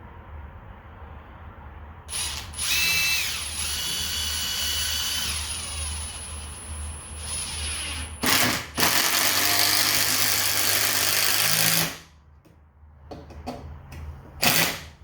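Hammer drill driving three-inch deck screws into wood. A long run of about six seconds has a motor whine that changes pitch. It is followed by a short burst and a second loud run of about three seconds that cuts off sharply, and there is a brief blip near the end.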